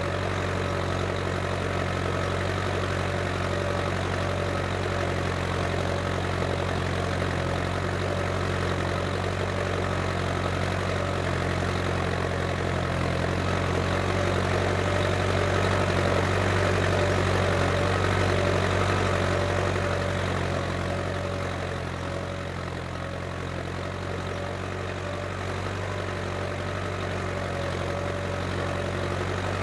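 Case International 885XL tractor's diesel engine running steadily while ploughing. It grows a little louder about halfway through and eases off a few seconds later.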